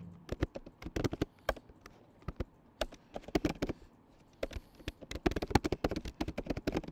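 Computer keyboard being typed on, keys clicking in quick bursts with short pauses between them.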